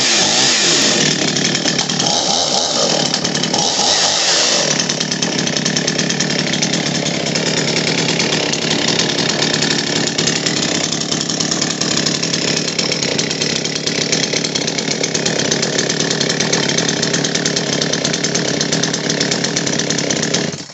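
Husqvarna 55 Rancher two-stroke chainsaw engine running. It is revved up and down a few times in the first four or five seconds, then runs steadily.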